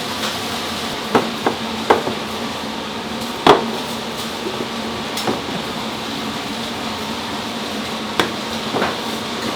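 Scattered sharp knocks and clacks of cooking utensils against hard surfaces over a steady background hum, the loudest about three and a half seconds in.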